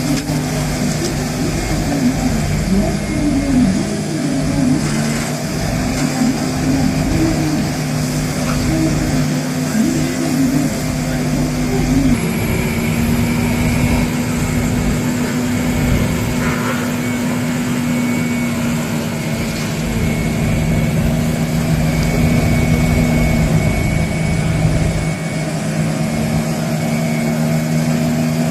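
Engine of a forestry vehicle on bogie axles running steadily as the machine drives. Its tone wavers up and down for the first ten seconds or so, then holds steadier.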